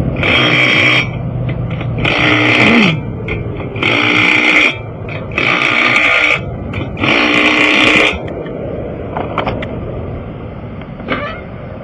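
Impact wrench running in five short bursts on a car's lug nuts, each burst just under a second long with a brief pause between.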